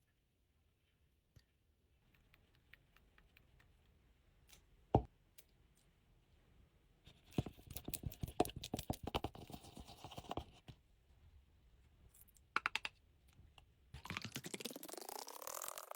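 Slime being worked with clay, making scattered sticky clicks, a sharp knock about five seconds in, and a dense run of clicking and crackling in the middle. Near the end a small motor starts and its whine rises to a steady pitch.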